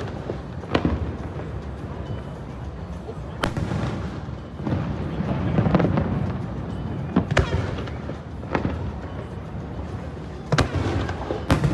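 Aerial fireworks bursting, about six sharp bangs at irregular intervals, each with a short echoing tail, over a continuous low rumble.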